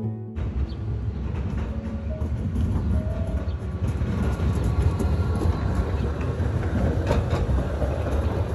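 Electric street tram running past a platform: a steady rumble of wheels on rails, with a few sharp clicks near the end.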